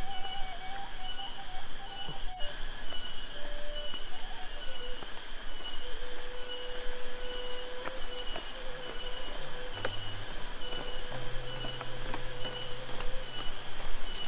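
Insects chirping steadily under slow background music of long held notes that step from one pitch to another.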